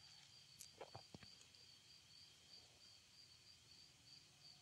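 Near silence, with a faint high-pitched insect chirp repeating evenly about three times a second. A couple of soft clicks come about a second in.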